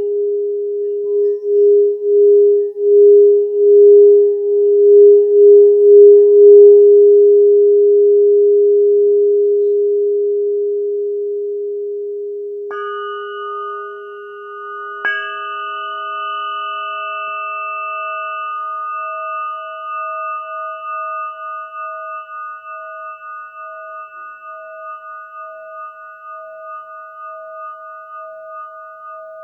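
Crystal singing bowl ringing with one low, pure tone that pulses and slowly fades. About 13 seconds in, a higher-pitched crystal instrument is struck, then struck again two seconds later. It rings on with several clear tones, slowly dying away.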